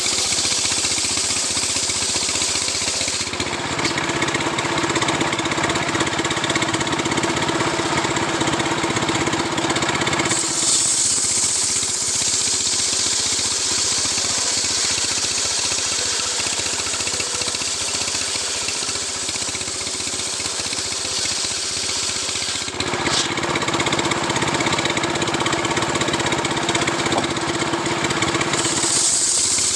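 Stihl two-stroke chainsaw running hard while ripping a coconut palm trunk lengthwise into a beam. Its sound shifts several times between a hissing, rasping cut and a steadier humming note.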